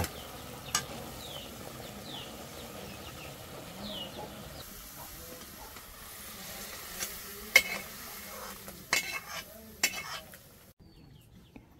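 Seasoning base of garlic, onion and herbs sizzling in a pot with pea cooking water, while a spoon stirs and knocks against the pot a few times. The sizzling cuts off near the end.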